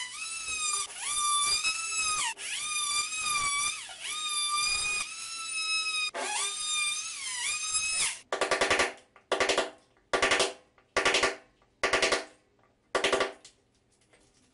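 Oscillating multi-tool with a plunge blade cutting into prefinished wood parquet boards: a high, harsh buzz whose pitch dips each time the blade bites and loads up. From about eight seconds in the tool is run in six short bursts, about one a second.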